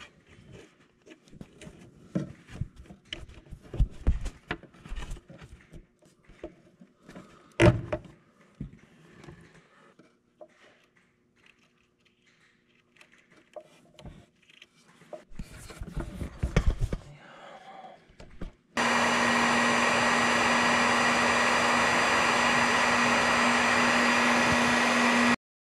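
Scattered clicks and clacks of hand tools working a wire splice, then about three-quarters in a heat gun starts blowing, a loud steady rush with a steady hum, shrinking a heat-shrink connector onto the wire, and cuts off suddenly near the end.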